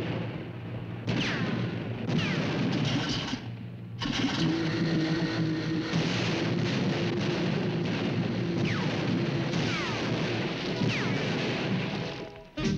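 Cartoon sound effects of a continuous barrage of gunfire and blasts, with several falling whistles through it. It breaks off briefly twice and stops near the end.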